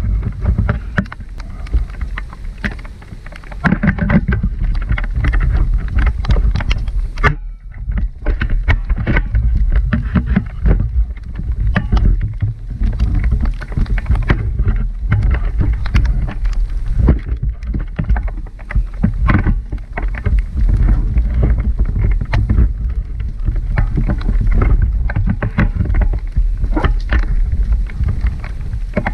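Wind and rain on the microphone outdoors: a heavy, steady low rumble with many irregular sharp taps throughout.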